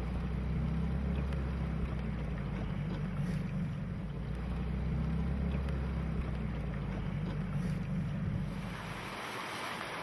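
Small boat's outboard motor running steadily, a low even hum, with water and wind noise. About eight and a half seconds in the hum stops and a brighter hiss of rippling water takes over.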